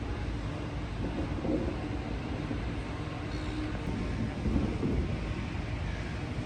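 Steady low rumble of outdoor city noise, distant traffic with wind buffeting the microphone, under a faint steady hum.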